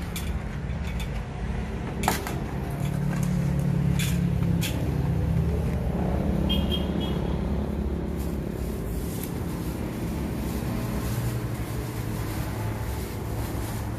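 Low, steady drone of a running motor-vehicle engine, its pitch shifting slightly, with a few sharp clicks over it.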